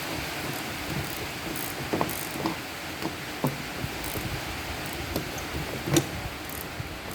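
Irregular metallic clicks and knocks, about a dozen, the loudest about six seconds in, over a steady hiss: hand work with tools or parts, typical of fitting a car's wiper arm.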